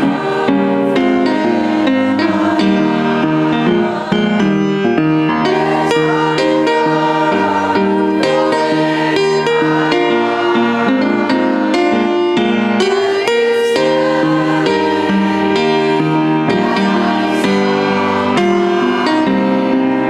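Piano music.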